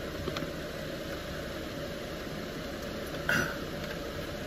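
Tata truck's diesel engine idling steadily, heard from inside the cab, with one brief louder sound about three seconds in.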